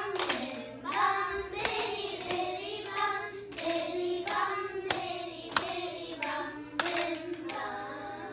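A class of young children singing a song together, with several sharp hand claps among the singing.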